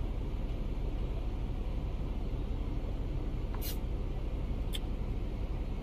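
Steady low rumbling background noise at an outdoor ground, with two brief high hisses about three and a half and four and a half seconds in.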